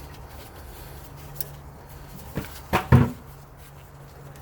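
Hand tools working the rear brake caliper's screws with an Allen wrench: a faint click, then a few short metal knocks about two and a half to three seconds in, over a low steady hum.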